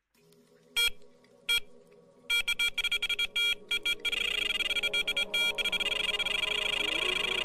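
Electronic sound effects from a channel intro: two sharp beeps, then a rapid stuttering run of beeps that turns about four seconds in into a steady, warbling electronic tone, over a quiet low drone.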